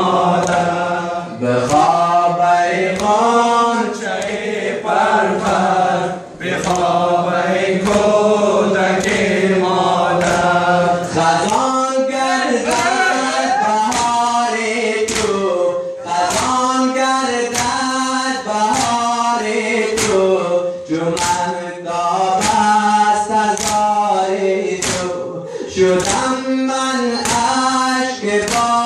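A crowd of men chanting a nauha, a mourning lament, together in unison, with sharp chest-beating slaps (sina zani) landing about once a second.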